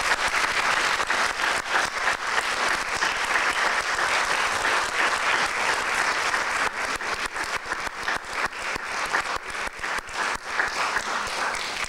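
Audience applauding: many hands clapping in a dense clatter that thins toward the end into fewer, more separate claps.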